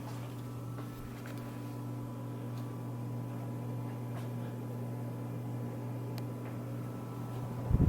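Old Jacksonville Williamsburg ceiling fan running with a steady motor hum, with a few faint ticks.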